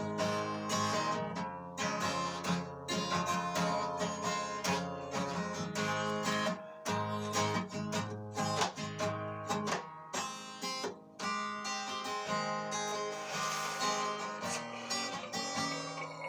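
Acoustic guitar music, strummed and plucked chords.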